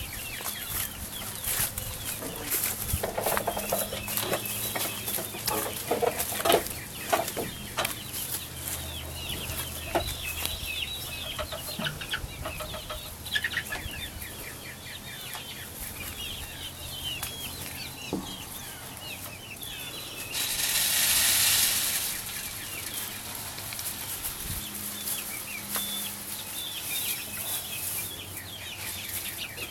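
A flock of chickens clucking and cheeping with many short high calls, while being fed, with scattered clicks and knocks. About two-thirds of the way through there is a loud rushing noise lasting about a second and a half.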